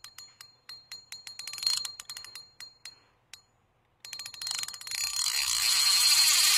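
Clear plastic bags crinkling and crackling as they are handled around balls of fishing-bait dough, in quick irregular crackles for about three seconds. About four seconds in, a loud, steady rushing noise starts and builds.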